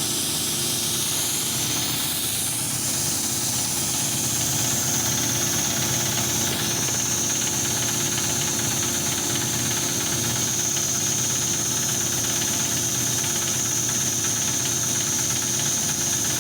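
Steady machinery running: a low hum with a hiss over it and a high steady whine that gets stronger about six and a half seconds in.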